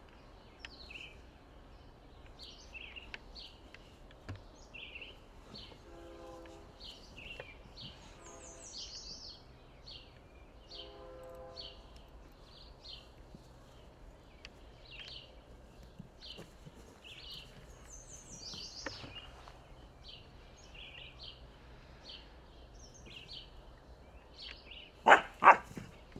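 Outdoor birdsong: short chirps and whistles from small birds repeat all through. A few brief low tones sound now and then, and two sharp thumps come close together near the end.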